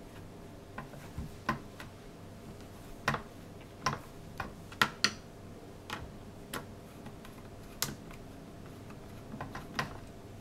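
Hand screwdriver clicking and ticking against a small motherboard mounting screw as it is turned into a case standoff: about a dozen sharp, irregular clicks. The screw is having a hard time going in.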